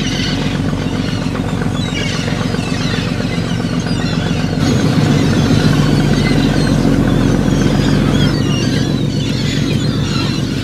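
Fishing trawler's engine running steadily, a little louder in the middle, with a flock of gulls calling over it in short cries.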